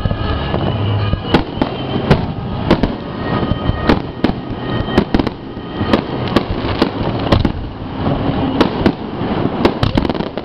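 Fireworks display: aerial shells launching and bursting overhead in a rapid, irregular series of sharp bangs.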